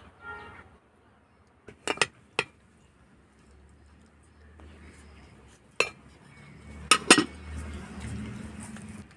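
Metal ladle clinking and knocking against a metal cooking pot and dishes as cooked rice is served out: a few sharp clinks about two seconds in and a few more around six to seven seconds.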